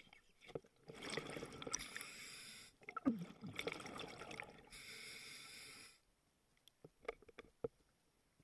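Scuba diver breathing through a regulator underwater: a rush of breath and bubbles for about five seconds, broken briefly once, then scattered small clicks and pops.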